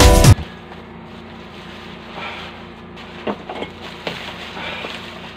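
Background music that cuts off suddenly just after the start, then faint rustling of plastic and bubble wrap with a few small knocks as a new miter saw is unpacked by hand, over a steady low hum.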